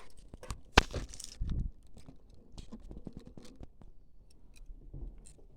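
Small handling noises of eating at a table: scattered light clicks and taps of tableware and food, with one sharp click about a second in and a short rustle just after.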